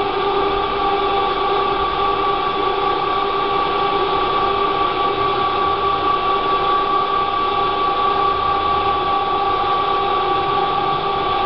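Paddle mixer running: its blades turning steadily in the drum, a constant machine hum with a steady whine.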